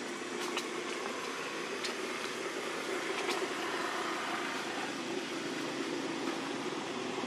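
Steady outdoor background noise, an even hiss and rumble, with a few faint clicks about half a second, two seconds and three seconds in.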